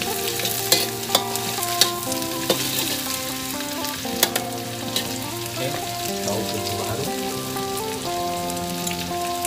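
Sliced onions and lemongrass sizzling in hot oil in a wok, with a metal spatula stirring and clacking against the wok now and then. Background music of held notes plays underneath.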